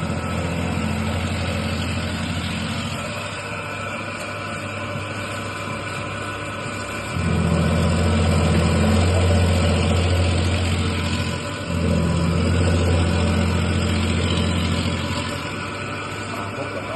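CH20 automatic conveyor-fed green onion slicer running with a steady motor hum over a constant mechanical noise. The hum grows louder in two long stretches in the second half, with a brief dip between them.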